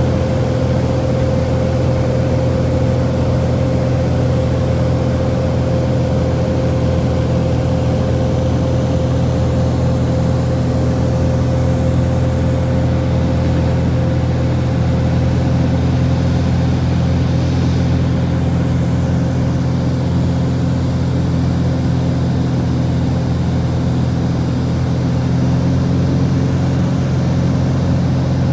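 Small private propeller plane's engine and propeller droning steadily in cruise, heard inside the cabin: a loud, even hum with a constant low pitch.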